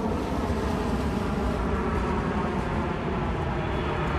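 Steady rumbling noise of a jet airliner flying low on approach to land, with no distinct events.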